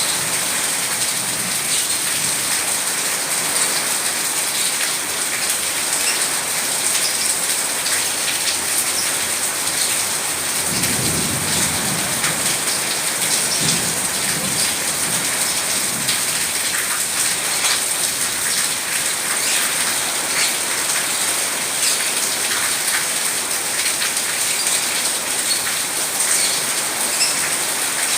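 Steady heavy rain hissing on surfaces, with low thunder rumbling around the middle.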